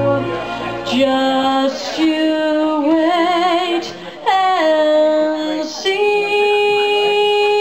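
A woman singing a slow melody into a microphone, ending the phrase on a long held note.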